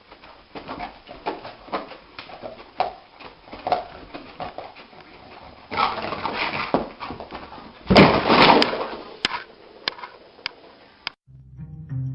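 A dog making a string of short vocal sounds, with two louder, noisier stretches about six and eight seconds in; it cuts off suddenly about a second before the end.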